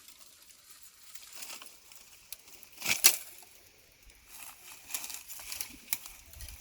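Rustling and crinkling, with one louder sharp crackle about three seconds in.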